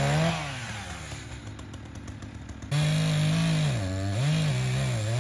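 Echo two-stroke chainsaw revving high, then dropping off about half a second in. It revs up again a little before three seconds in, its revs dipping and recovering a couple of times before holding steady.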